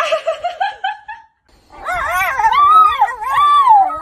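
A Siberian husky's short, choppy vocalising in the first second or so, then, after a brief silence, another dog howling in long, wavering notes that rise and fall in pitch.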